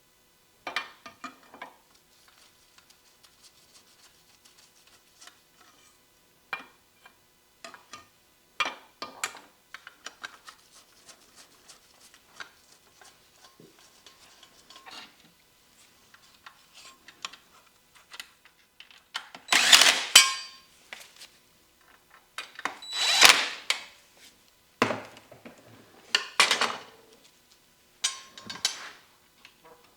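Tools and metal parts being handled on a workbench: scattered clicks and clinks, with two louder rattling clatters, each about a second long, about two-thirds of the way through.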